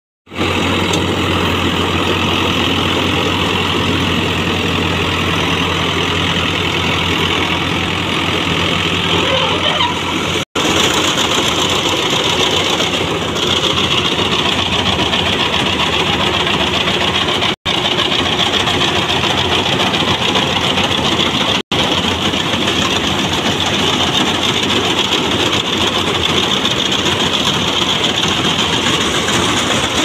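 A Sonalika DI 60 tractor's diesel engine runs steadily under load while it drives a tractor-mounted Vikas mini combine harvester at work, giving a dense, even mechanical din. The sound cuts out for an instant three times.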